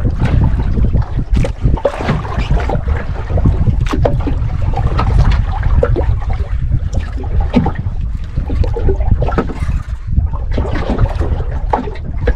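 Wind buffeting the microphone on a small boat at sea, with water sloshing and scattered knocks and clicks.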